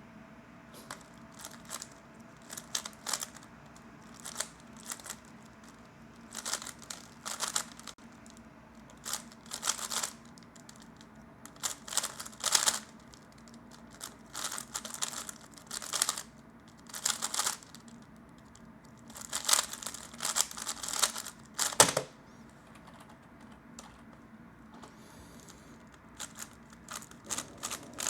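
A 3x3 speedcube being turned quickly by hand: rapid runs of plastic clicking and clacking in bursts, with short pauses between turn sequences. One sharper knock comes about two-thirds of the way in, followed by a few seconds' lull before the turning starts again.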